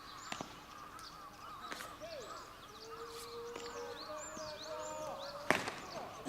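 Open-air ballfield background of distant voices and bird calls, with one sharp knock about five and a half seconds in.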